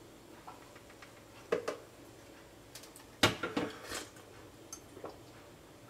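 A few sharp knocks and clinks of kitchenware as a plastic blender jar and a stainless steel travel mug are handled and set down on a counter, the loudest knock a little after three seconds in.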